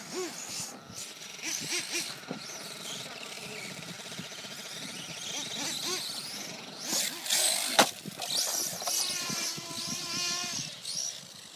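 Brushless electric motor of a 1:10 RC monster truck whining up and down in pitch as the truck speeds up and slows on sand, with a sharp knock about eight seconds in.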